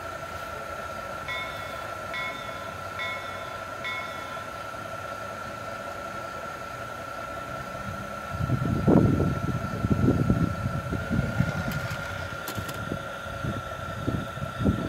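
O-gauge Lionel model train: four short pitched beeps about a second apart over a steady high hum, then about eight seconds in the train starts running, its motor and wheels rumbling unevenly along the three-rail track, with a couple of sharp clicks.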